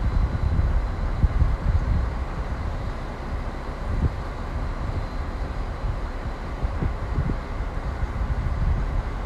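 Diesel shunting locomotive running as it rolls slowly along the track: a steady low rumble.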